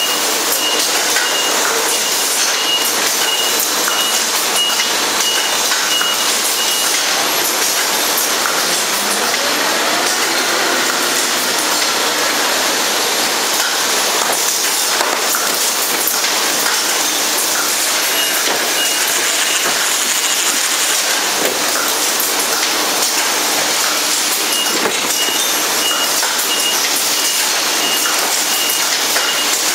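Beverage bottling production line machinery running: a loud, steady hiss and clatter. Over it a high beep repeats about twice a second, stopping after about seven seconds and coming back twice later.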